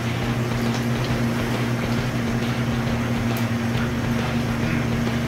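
Steady mechanical hum with an even rush of air from kitchen machinery, such as ventilation or refrigeration.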